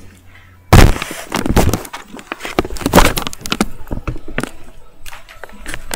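Handling noise from a camera being picked up and carried: a loud thump less than a second in, then a run of uneven knocks, rubs and clicks against the microphone.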